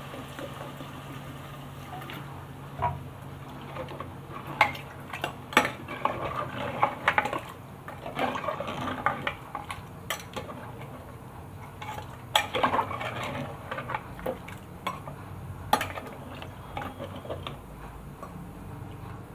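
Metal ladle stirring meat and water in an aluminium pressure cooker, clinking and scraping against the pot's sides and bottom in irregular strokes from about two seconds in.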